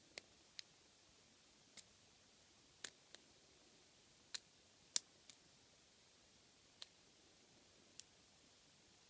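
Lock pick working the pins of a five-pin euro cylinder lock under tension: about ten short, faint clicks at irregular intervals, the loudest about five seconds in.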